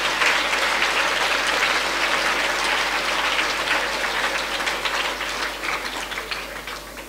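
Audience applauding, the many claps dying away over the last couple of seconds.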